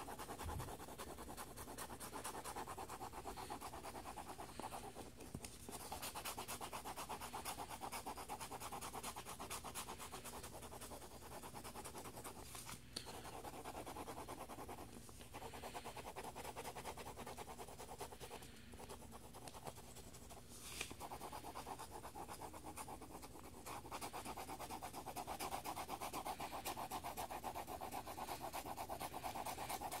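Mechanical pencil lead scratching rapidly back and forth on lined paper as the sheet is shaded in, a quick rasping rhythm broken by several brief pauses.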